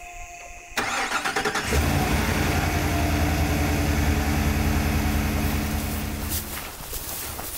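Pickup truck engine cranking and catching about a second in, then running steadily at idle for several seconds before fading out near the end.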